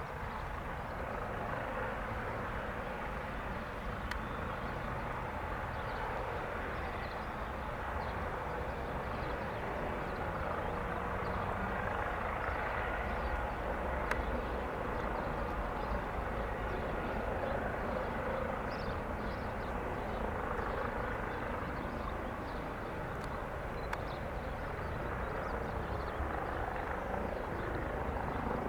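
Eurocopter EC135 helicopter running, a steady rotor and turbine noise with no clear change.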